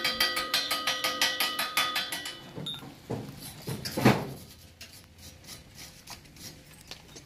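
Rapid, even clicking, about five a second, with a faint ringing tone, fading out over the first three seconds; then a single knock about four seconds in as a galvanized metal frame is handled.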